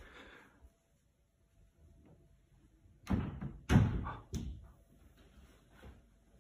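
Three heavy thuds about two-thirds of a second apart, the middle one loudest, against near-quiet room tone.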